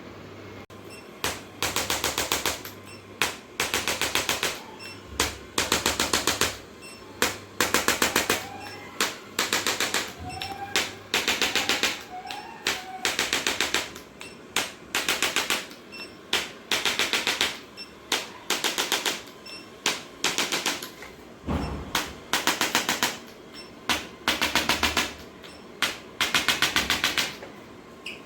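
Handheld chiropractic adjusting instrument firing rapid taps in short bursts, about one burst a second with brief pauses between, as it is worked over the patient's body.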